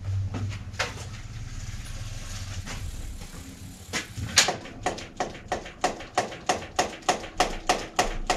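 Regular sharp metallic clicks, about three a second, from hands-on work on a bicycle in a repair stand. They start a little past halfway, after a low hum and a single click near the start.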